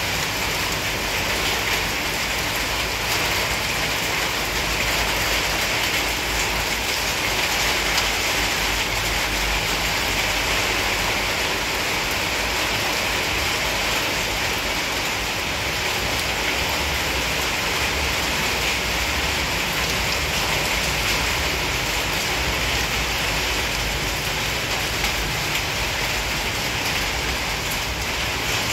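Steady rain falling: an even, unbroken hiss with a low rumble underneath.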